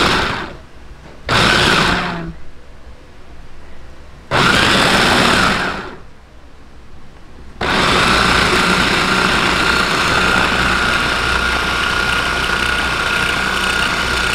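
Small electric food processor grinding raw shrimp and squid into a fine paste. It is pulsed in short bursts, then a longer one about four seconds in, then runs without stopping from about halfway on, with a steady whine.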